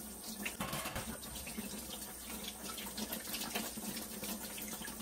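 Kitchen sink faucet running steadily while vegetables are rinsed under the stream.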